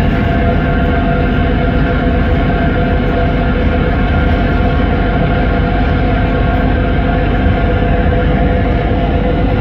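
Passenger ferry under way: its engines running with a steady, loud hum, over a constant rush of wind and water.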